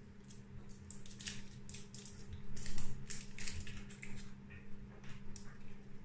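Foil wrapper of a Knorr stock cube crinkling and crackling in the fingers as it is unwrapped, in quick irregular clicks, over a steady low hum.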